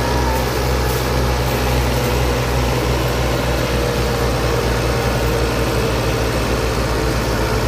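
Farm tractor's diesel engine running steadily under heavy load, a low, even drone.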